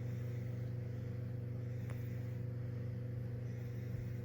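A steady low hum of a small motor or appliance, with one faint click about two seconds in.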